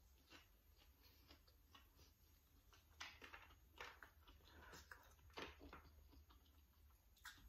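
Faint eating sounds: close-up chewing and fingers tearing at grilled sun-dried pork, heard as small scattered clicks and crackles, with a few sharper ones around the middle.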